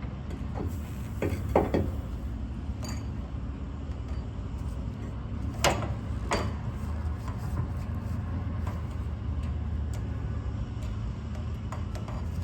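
A steady low mechanical hum from a running motor or engine, broken by a few sharp knocks and clanks: a cluster about one and a half seconds in and two louder ones around six seconds in.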